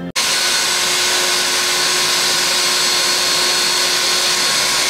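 Vacuum cleaner running steadily, a loud even whirring hiss with a constant whine in it, cutting in abruptly right at the start.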